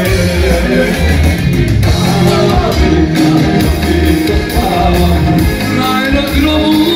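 Live band music over a PA: an electronic keyboard playing a dance accompaniment with a steady bass beat, and a man singing into a microphone.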